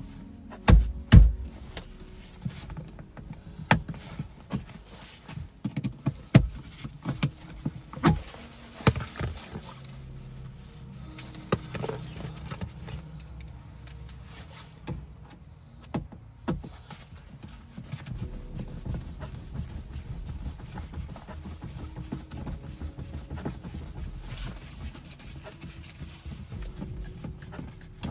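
Irregular clicks, knocks and rattles of hands and tools working an interior car door panel (door card) loose, densest in the first half. A low steady rumble runs through the second half.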